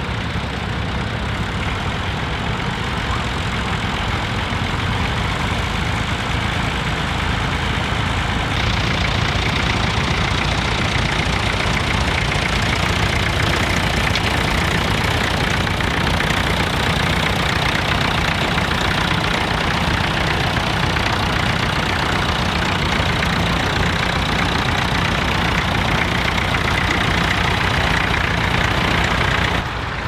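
Vintage tractor engines running steadily while pulling ploughs. The sound changes about eight seconds in to a brighter, harsher engine note, then drops sharply just before the end.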